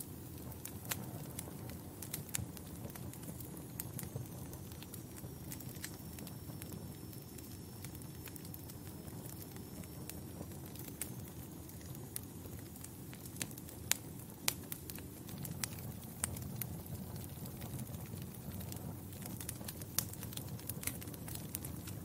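Wood fire crackling in a fireplace: a steady low rumble of flames with scattered sharp pops, a few louder ones about two-thirds of the way in.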